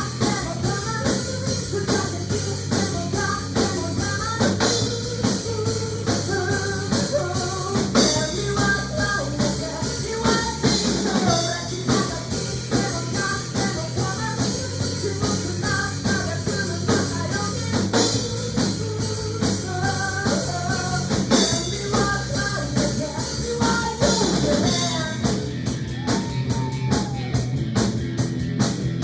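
Rock music with a drum kit, bass and a voice singing, at a steady beat.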